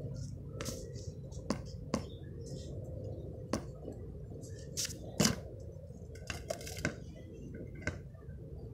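A steady low rumble with scattered sharp clicks and taps, the loudest about five seconds in.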